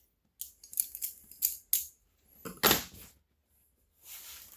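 Benchmade 85 butterfly knife being flipped: a quick run of sharp metallic clicks and clacks as the handles swing and strike, then a louder, heavier clack about two and a half seconds in.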